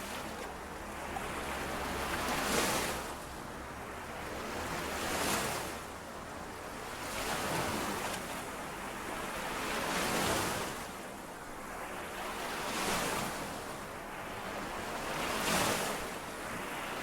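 Lake waves washing in and out against the shore, rising and falling in a steady rhythm, a swell about every two and a half seconds.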